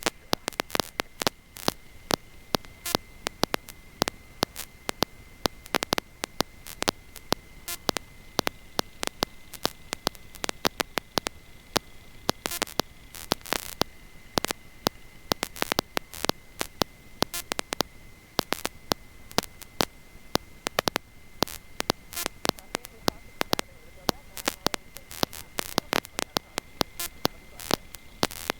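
Electrical static on the audio line: dense, irregular crackling clicks over a faint hiss, with a steady high-pitched whine underneath.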